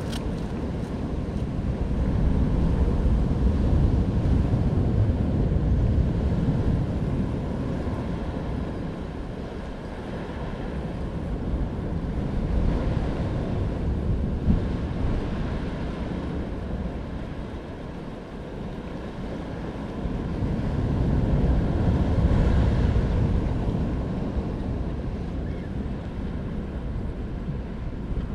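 Wind rumbling on the microphone over the steady wash of sea surf against jetty rocks. The noise swells and eases in slow gusts every several seconds.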